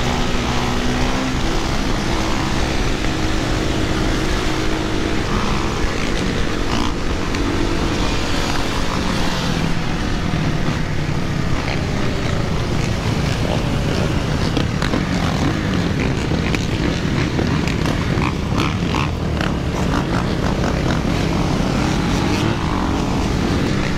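Dirt bikes and quad ATVs riding together, their engines running and revving close by. One steady engine note stands out over the first few seconds, then a denser mix of several engines follows.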